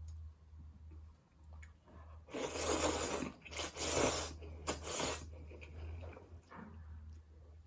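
Close-miked eating of spicy fire noodles: soft chewing, then about two seconds in a run of four or five loud, noisy bursts of eating sound lasting roughly three seconds, over a low steady hum.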